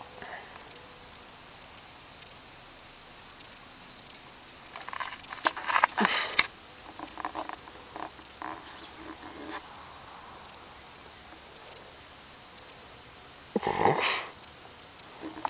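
Insect chirping in a steady rhythm, about two short high chirps a second, with a louder noise about six seconds in and another near the end.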